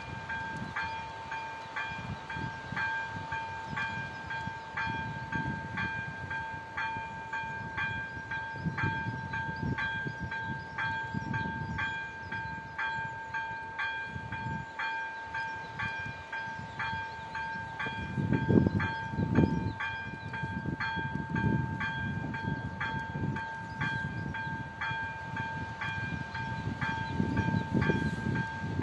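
Czech level-crossing warning bell ringing: a steady two-tone ring with evenly repeated strikes while the crossing's red lights flash for an approaching train. An uneven low rumble runs underneath and swells about two-thirds of the way through.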